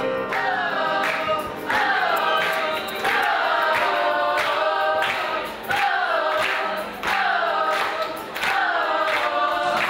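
Group of voices singing a short phrase that falls in pitch, repeated over and over about every second and a quarter.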